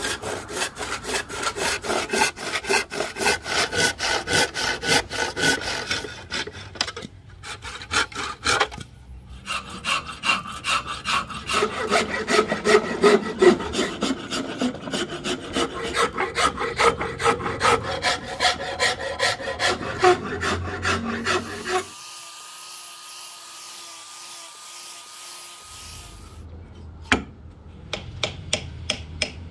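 Hand tools working rosewood: rapid back-and-forth strokes of a handsaw cutting a rosewood board, then a hand file scraping along the edge of the rosewood axe handle, several strokes a second. About 22 seconds in the strokes stop for a quieter stretch with a faint steady tone, and short strokes return near the end.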